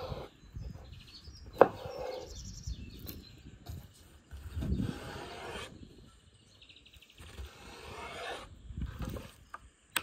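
Kitchen knife slicing raw lamb heart and liver on a wooden cutting board, with a sharp knock of the blade on the board about one and a half seconds in. Birds chirp faintly in the background.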